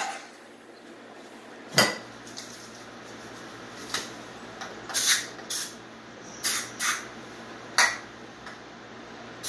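Sharp metallic clinks and knocks from hands and tools working on a 1977 Honda CB750's engine and carburettors, about seven in all with the loudest about two seconds in, some trailing off into short hisses. The engine's running sound dies away right at the start.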